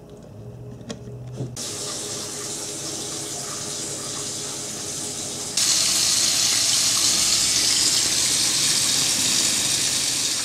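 Water running from a tap: a steady rushing hiss that starts about a second and a half in and gets louder about four seconds later, after a short low hum.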